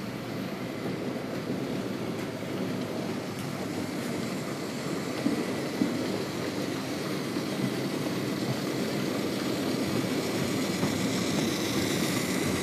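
HO scale Märklin model freight train, hauled by a diesel locomotive, running on the layout's track. Its motor and wheels make a steady rumble that grows louder as it approaches, with two short clicks about five seconds in.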